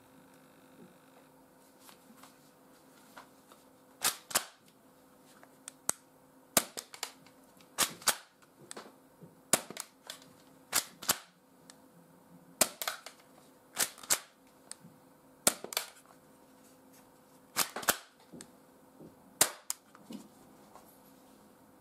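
Tokyo Marui spring-powered Colt 1911 airsoft pistol firing about ten shots through a chronograph, one every one and a half to two seconds, each a sharp snap, some heard as close pairs of clicks. Each shot is cocked by hand, since it is a single-shot spring pistol.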